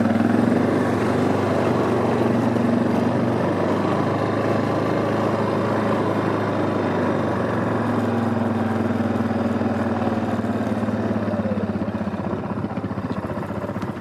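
Quad bike engine running steadily, a constant low hum.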